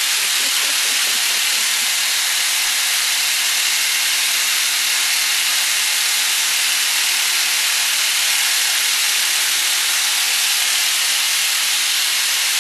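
Homemade magnet pulse motor spinning at a steady speed, a constant whirring hiss with no change in pace.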